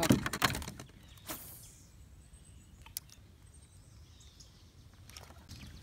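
Quiet pond-side outdoor ambience with faint high chirps. A little rustling at the start and a couple of sharp clicks, one about a second in and one about three seconds in, from handling the fishing gear.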